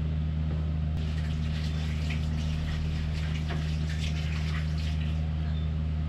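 Steady low machine hum, with faint scattered clatter of kitchen work from about one second in to about five seconds in.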